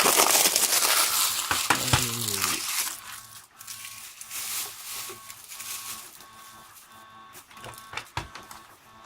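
Thin plastic packaging being crinkled and pulled off by hand. It is loud for the first three seconds or so, then drops to quieter rustling with a few clicks.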